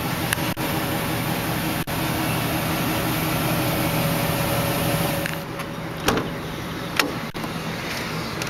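2002 Chevrolet Express conversion van's engine idling steadily, heard at the exhaust from under the van. A little past halfway it drops quieter, and two sharp knocks follow.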